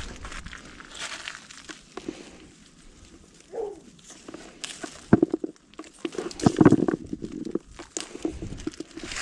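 Olive branches and leaves rustling and snapping as olives are picked off by hand, with irregular crunches of dry leaf litter underfoot.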